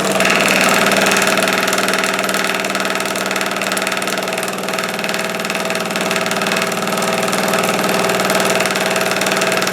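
Homemade wooden scroll saw driven by an electric motor, switched on and running at speed: a steady motor hum with a fast, even chatter from the reciprocating arms and blade. It runs sweetly on its new motor drivetrain, staying put without being screwed to the bench.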